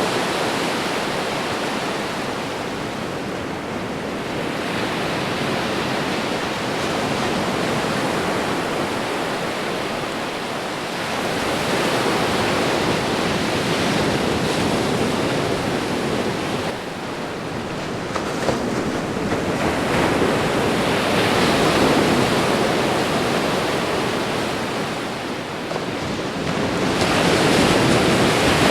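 Ocean waves washing onto a shore: a steady rushing that swells and eases every several seconds.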